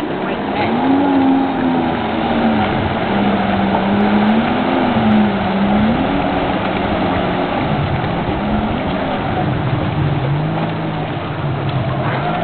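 Watercraft engine running, its pitch rising and falling several times as the throttle changes, over a steady rush of wind and water noise.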